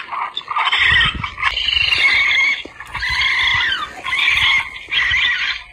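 Electronic predator call playing a raccoon call: a string of wavering animal cries, each about a second long, with short breaks between.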